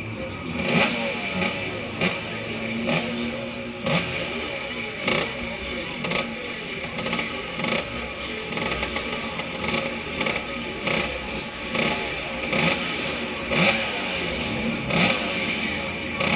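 Several scooter engines idling together in a queue, with short, sharp loud blips about every second.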